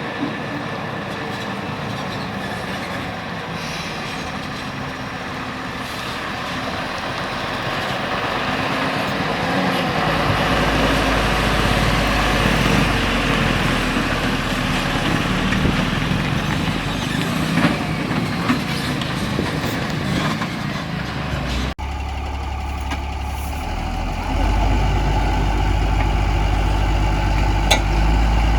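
Heavy diesel engine of a JCB 3DX backhoe loader working while loading a tipper truck, a steady rumble that grows louder about a third of the way in. Near three quarters through it breaks off abruptly, then carries on with a stronger low rumble.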